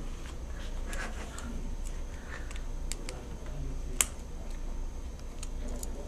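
Small clicks and scrapes of a thin screwdriver and wire ends being worked into low-voltage screw terminals, with one sharper click about four seconds in.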